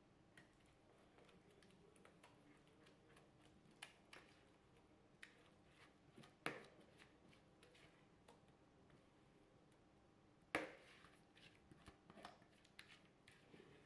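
Near silence, broken by faint scraping and short soft knocks of a spatula against a plastic mixing bowl as cake batter is scraped out into a cake tin. A sharper knock comes about halfway through and the loudest about three-quarters through.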